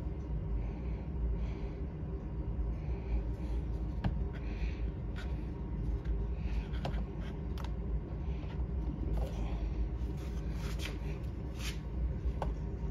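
Soft rustling and scattered small clicks of hands fiddling with a smart deadbolt's parts, trying to fit its short wire connector, over a steady low hum.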